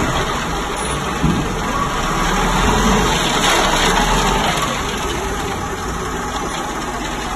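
Engine of a self-loading concrete mixer truck running steadily, with a low hum that drops away a little past halfway.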